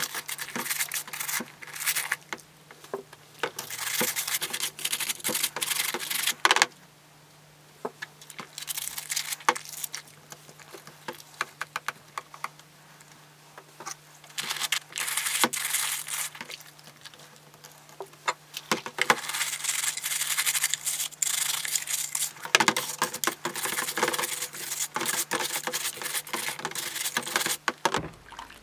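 Stiff nylon brush scrubbing plastic Dyson V10 parts in a basin of soapy water, in bouts of scratchy scrubbing with small splashes and plastic clicks, broken by short pauses. A faint steady hum runs underneath, and everything stops abruptly near the end.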